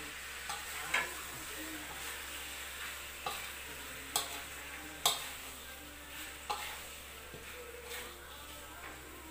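Eel pieces in spice paste sizzling in a wok while a spatula stirs them, with sharp knocks of the spatula against the wok several times at uneven intervals.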